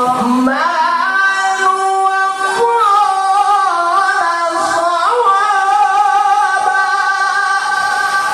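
A woman's voice singing long, ornamented held notes that waver and slide in pitch, with no instruments.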